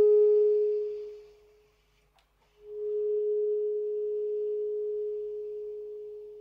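Saxophone playing a slow melody: a held note dies away, and after a brief silence with a faint key click the same note comes in again very softly, almost pure in tone, and is held before fading near the end.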